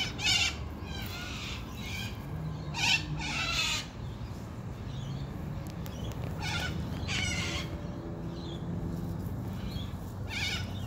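Sulphur-crested cockatoos giving short, harsh squawks, several single calls a few seconds apart, the loudest about three seconds in, over a low steady background hum.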